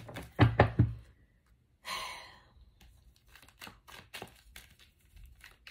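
Tarot cards being handled and slipped back into the deck, with a few sharp snaps in the first second and light, scattered card ticks through the rest. A breathy sigh comes about two seconds in.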